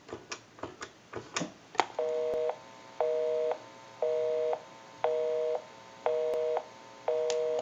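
A short run of faint clicks, then a telephone busy signal: a steady two-note tone, about half a second on and half a second off, sounding six times. It means the called line is busy.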